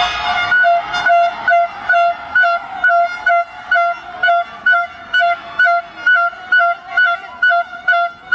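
A horn honked over and over in a steady rhythm, about two short notes a second, all on the same pitch.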